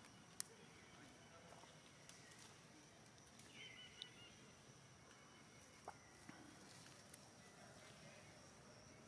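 Near silence with a faint steady high tone, a few faint ticks, and one faint short bird call about three and a half seconds in.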